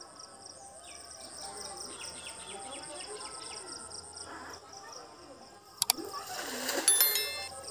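Crickets chirring steadily, with birds chirping. About six seconds in there are two sharp clicks. Then a hand-thrown cast net swishes through the air and lands on the pond with a splash, the loudest sound here.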